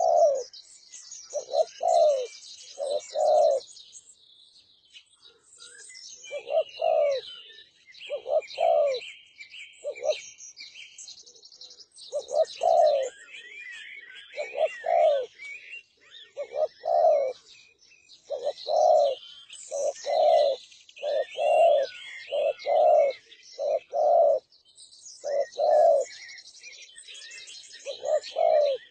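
Derkuku (spotted dove) cooing: its low, mellow coo notes come again and again in short phrases of two to four, with brief gaps between phrases. Small birds chirp high and continuously behind it.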